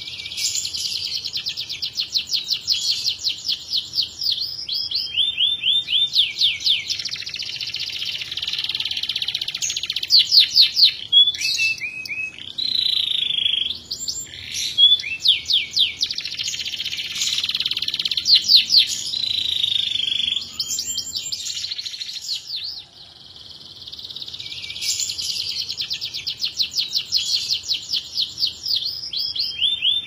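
Domestic canary singing a long, continuous song of rapid high-pitched trills and rolling phrases, broken by a short pause about two-thirds of the way through.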